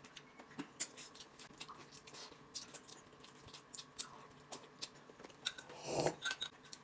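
Quiet eating sounds: soft chewing and scattered small clicks of chopsticks. Near the end comes a louder sip from a glass cup.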